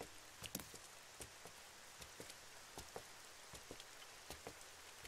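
Faint steady rain, with scattered single drops ticking and dripping on hard surfaces at irregular moments.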